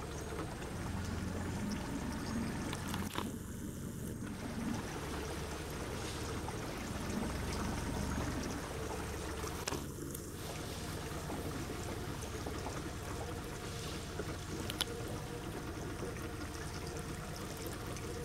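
Water washing along a small boat's hull, a steady noise with a low rumble beneath it and a few short knocks.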